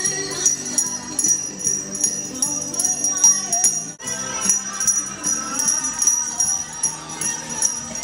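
Salvation Army collectors' handbells ringing over and over in a quick, steady rhythm, several strikes a second, with a brief break about four seconds in.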